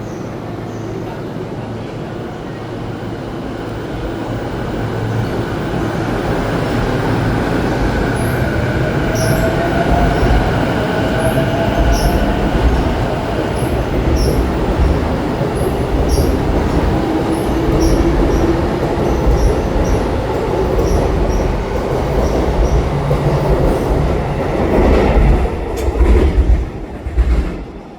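Electric commuter train pulling out and gathering speed past the listener: the motor whine rises in pitch and the wheels click over rail joints at a quickening beat. The sound builds to its loudest about 25 seconds in, then falls away sharply as the last car goes by.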